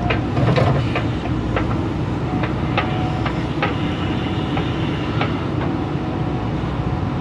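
A heavy engine running steadily, with irregular sharp metallic clanks and rattles over it, mostly in the first five seconds.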